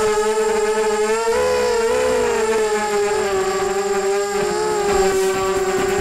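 Electric motors and propellers of a ZMR 250 FPV racing quadcopter whining in flight, picked up by its onboard camera. The pitch holds fairly steady with small wobbles as the throttle moves, and climbs slightly near the end.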